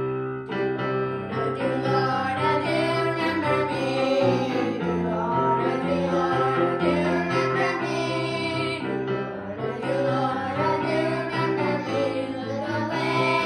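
Young girls singing a gospel song together, accompanied by held chords on a Casio electronic keyboard.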